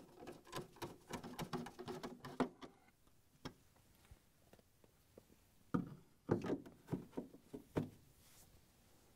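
Hand nut driver turning screws into the freezer's plastic end cap: a quick run of clicks and creaks that stops about two and a half seconds in. A few seconds later, several sharp knocks of plastic parts being pushed into place.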